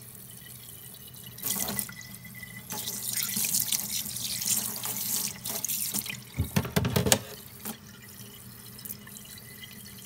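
Kitchen tap running into a stainless steel sink, the stream splashing over hands as they rinse fish innards under it. The splashing grows louder and uneven for several seconds in the middle, then settles back to the steady run of the tap.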